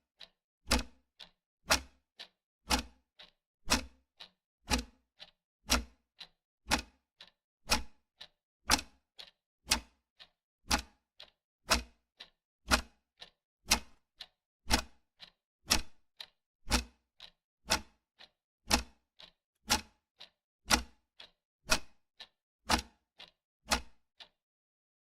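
Wall clock ticking steadily, about two ticks a second with a louder tick alternating with a softer tock. The ticking breaks off briefly near the end.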